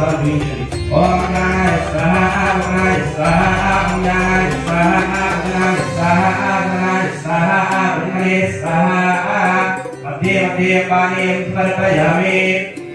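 Chanted mantras: a voice reciting in a sing-song melody over a steady drone, with short pauses between phrases.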